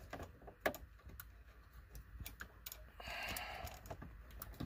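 Small plastic dash trim and switch pieces being handled and pushed into their slots: scattered faint plastic clicks and taps, with a brief scrape about three seconds in.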